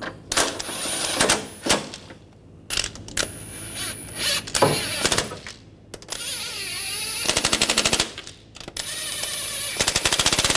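Cordless impact wrench running engine-mount nuts down in several short spells, spinning freely with a high whine. Near the end of some spells it breaks into rapid hammering as the nuts seat tight.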